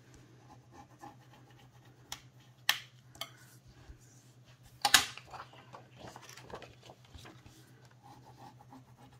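White cardstock being handled and folded with a wooden bone folder: a few sharp paper clicks and taps, the loudest about five seconds in, with soft rubbing strokes in between. A faint steady low hum runs underneath.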